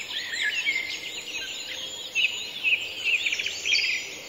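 Background birdsong: many small birds chirping and twittering, short high calls overlapping one another.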